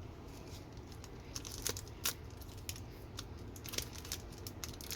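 Hockey cards and crinkly plastic being handled: faint scattered crinkles and light clicks, busier in the second half.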